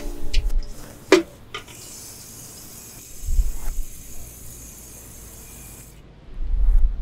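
A metal bucket set down on pavement with a ringing clank about a second in, among a few lighter knocks, then a steady high hiss that cuts off about six seconds in, with low gusts of wind on the microphone.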